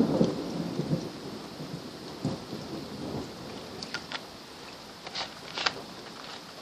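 Steady rain falling, with a low rumble of thunder fading out in the first half-second and a few short sharp ticks later on.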